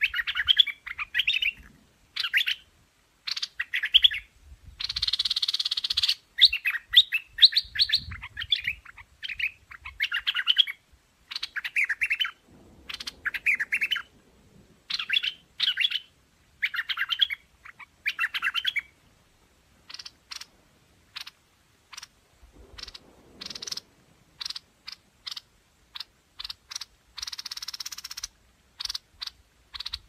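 Streak-eared bulbul calls played as a lure recording: short, bright chirping phrases repeated about once a second, with two longer harsh notes. From about twenty seconds in the notes turn into short, sharp clicks.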